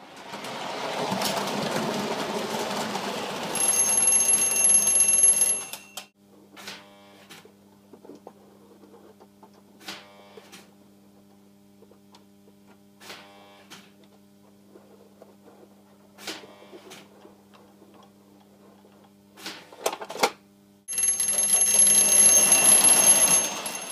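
Lionel O-gauge train running noisily on the track, stopping after about six seconds. A steady hum follows, broken by short buzzing bursts as the piggyback loader's lift truck works a trailer off the flatcar. The train runs again for the last few seconds.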